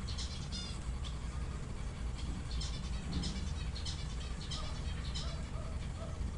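Background animal calls: short high chirps repeating every half second to a second, with short lower notes between them, over a steady low rumble.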